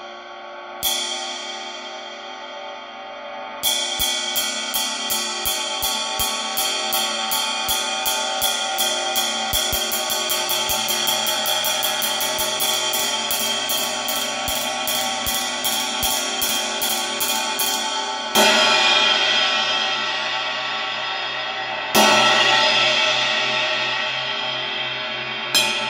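22-inch Paiste Sound Creation Bell Ride cymbal played with a wooden drumstick. Two single strokes come first, then a steady ride pattern on the bow at about four strokes a second for some fourteen seconds. Two loud single strikes are then left to ring out, and a few more strokes come near the end.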